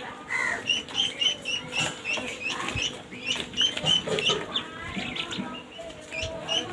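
A group of ducklings peeping: many short, high chirps from several birds overlapping, a few every second.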